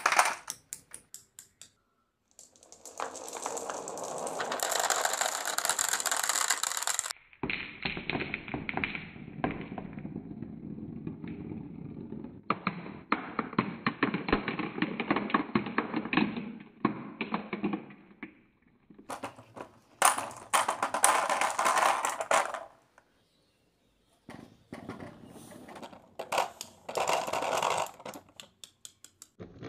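Rubber bouncy balls and glass marbles rolling down a cardboard tube and chute and clattering into a plastic toy dump truck bed: a rolling rumble full of small clicks and knocks, in several stretches that each start and stop abruptly.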